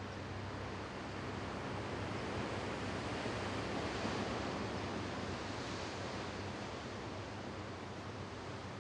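Steady outdoor rushing noise that swells slightly in the middle, with a faint low hum underneath.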